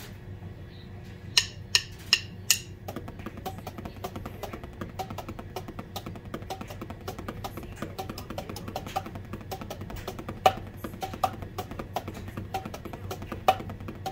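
Four sharp count-in clicks, evenly spaced at about a beat of 160 bpm, then a fast drum lick played with sticks on an electronic drum kit, a dense run of rapid strokes with a few louder accents.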